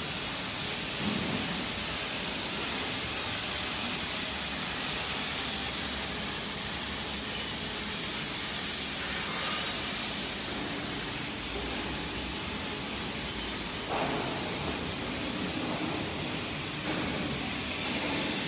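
Steady hiss of factory-floor background noise, with a brief knock about fourteen seconds in.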